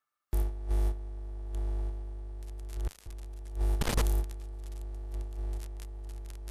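Electrical hum and buzz with crackling static, cutting in suddenly after silence. A short dropout comes about three seconds in, followed by a loud burst of static.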